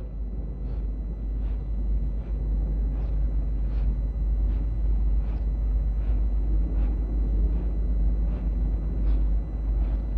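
Steady low hum and rumble with background hiss from an old 1970 recording, heard between verses of Quran recitation. Faint ticks come about every three-quarters of a second.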